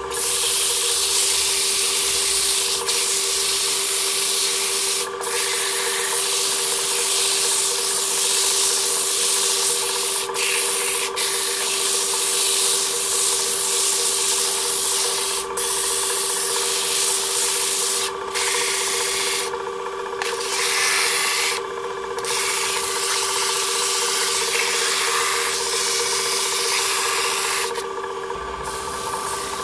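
Hand-held sandpaper rubbing against a turned wooden box spinning on an electric lathe: a loud, steady hiss over the motor's steady hum, with brief breaks as the paper lifts off. The sanding hiss drops away near the end while the lathe keeps running.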